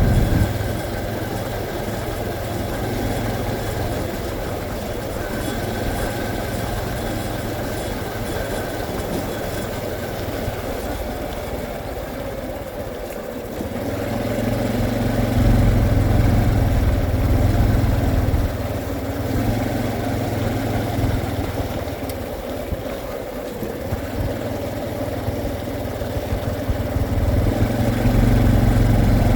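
Honda CT125 motorcycle's single-cylinder engine running, getting louder about halfway through and again near the end.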